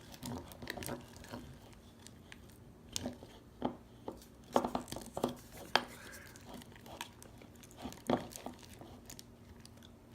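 Fluffy slime being stirred in a bowl as the borax solution works in: irregular, fairly quiet sticky clicks and squelches, some of them the stirrer knocking the bowl.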